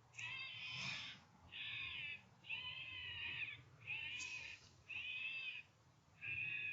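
Electronic fox caller playing a repeated squealing distress call through its speaker, about six high-pitched calls, each roughly a second long, with short pauses between.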